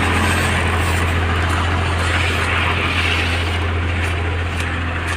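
A motor vehicle's engine running steadily at idle, a constant low hum under an even hiss.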